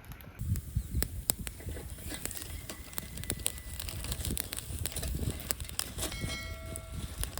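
Wood fire crackling, with many irregular sharp pops and snaps over a low rumble. About six seconds in comes a short, steady, pitched tone lasting under a second.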